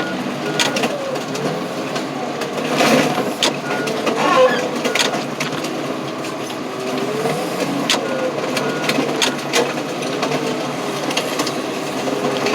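Small four-cylinder car engine, a Ford Aspire's, revving hard, its pitch climbing and falling again and again as it is run through the gears, with scattered sharp clanks and knocks. The car is being driven flat out on purpose to blow the engine.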